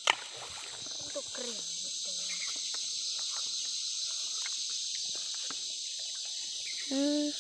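Steady high-pitched insect chorus, with scattered sharp clicks as a large knife shaves and cuts a bamboo shoot. The loudest knock comes right at the start.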